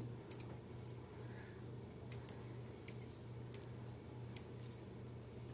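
Small hand tools being handled at close range: a scatter of light, sharp clicks, about eight of them at uneven intervals, over a steady low hum.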